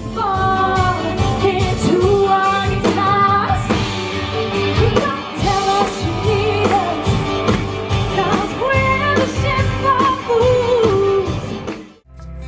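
Live rock band playing: a woman singing over electric guitar, bass guitar and drums.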